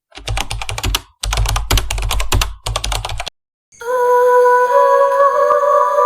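Rapid keyboard-typing clatter in three runs, then after a brief silence a steady, eerie music drone of held tones comes in.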